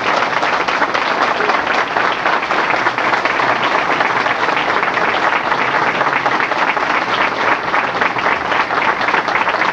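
Audience applauding: many people clapping together at an even level.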